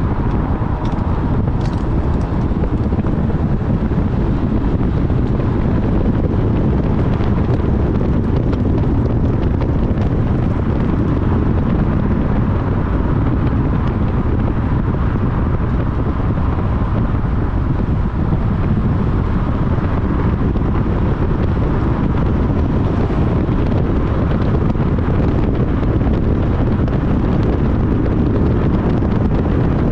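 Steady low rumble of a Honda Civic Type R (FL5) being driven: road and running noise, with wind on the microphone.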